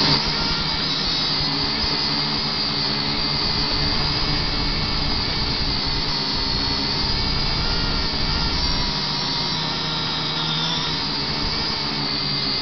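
Potensic quadcopter drone's electric motors and propellers running in flight: a steady high whine that wavers slightly in pitch and dips briefly near the end.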